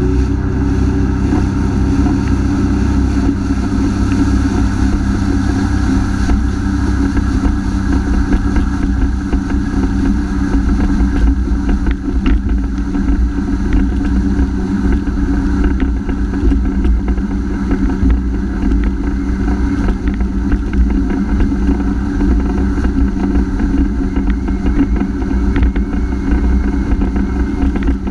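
Honda AquaTrax F-12X personal watercraft's turbocharged four-cylinder four-stroke engine running steadily under way, holding an even pitch over a heavy low rumble.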